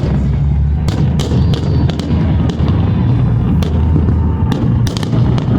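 Fireworks display going off: a continuous low rumble of booms with sharp cracks and bangs about every half second.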